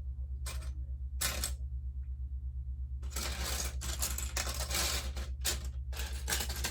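Plastic LEGO pieces clattering and rattling as hands sift through a pile looking for a part: a few short rattles, then a longer stretch of rattling in the middle. A steady low hum runs underneath.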